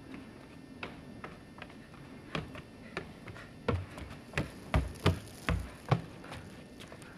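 Running footsteps on a wooden boardwalk and its steps: hollow knocks on the planks, faint at first, loudest about halfway through as the runner comes close, then thinning out near the end.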